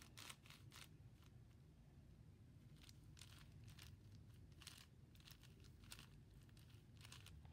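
Faint, irregular plastic clicks and clacks of a 5x5 puzzle cube's layers being turned by hand.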